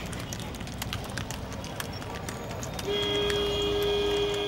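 A vehicle horn blowing one steady note, held for about a second and a half starting about three seconds in. Before it, road noise with scattered light clicks.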